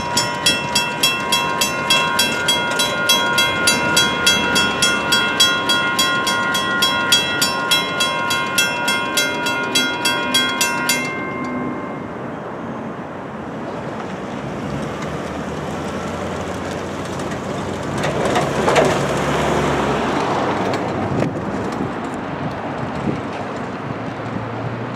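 Railroad crossing bells, a WCH mechanical bell together with a WCH electronic bell, ringing in rapid even strokes, then stopping abruptly about 11 seconds in as the gates rise and the crossing clears. After that there is steady outdoor noise with a louder rush about two-thirds of the way through.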